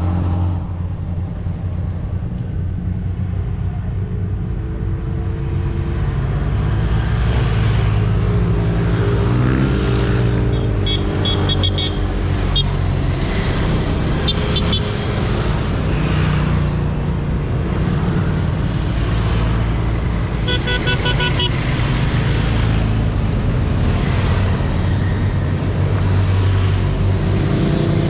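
Motorcycle engines running in a large group ride, a steady low engine note that rises and falls in pitch about a third of the way in. Short bursts of horn beeping come three times, around the middle and again about three-quarters through.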